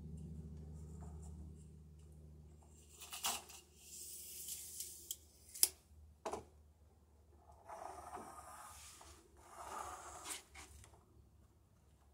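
Hands and a tape measure scraping and rubbing along a wooden plank, in several short passages, with two sharp clicks in the middle.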